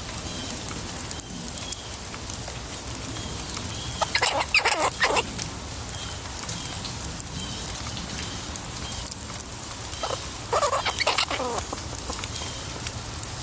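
An animal calling in two bursts of rapid, chattering calls about six seconds apart, over faint high chirps repeating about twice a second.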